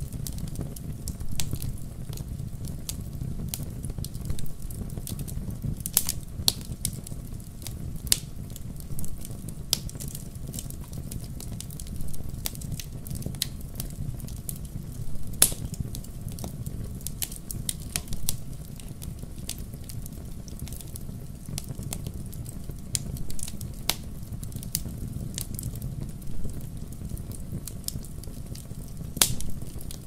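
Wood fire burning in a fireplace: a steady low rumble of flames under constant irregular crackling from the burning logs, with a few louder, sharper pops now and then.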